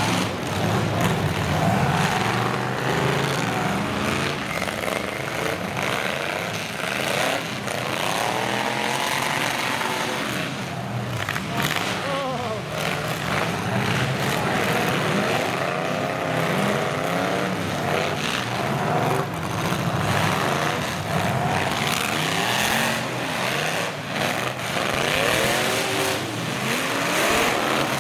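Several demolition derby trucks' engines revving over and over, their pitches rising and falling across one another as the trucks push and ram in the mud, with occasional sharp knocks of impacts.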